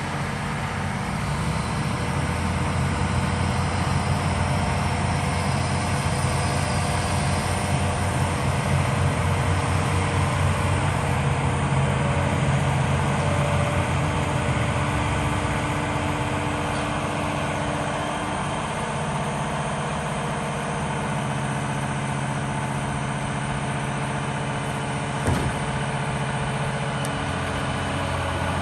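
Liebherr R946 long-reach excavator's diesel engine running steadily, a little louder for the first half before settling, with one short knock near the end.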